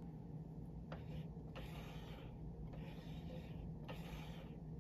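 Faint breathing close to the microphone, soft hissy breaths coming about once a second over a steady low hum.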